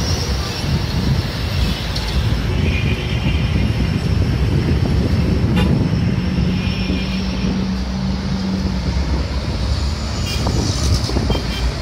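Busy city street traffic heard from high above: a steady rumble of engines and tyres, with car horns tooting a few times and a long low note held for about three seconds around the middle.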